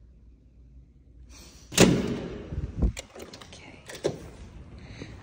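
A door opening with a sudden loud clunk that dies away over about a second, followed by a low thud and then a sharp click.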